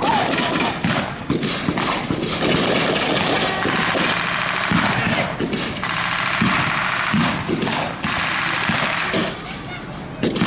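Machine guns and rifles firing blanks in a staged battle, an almost continuous rattle of rapid shots that eases off near the end.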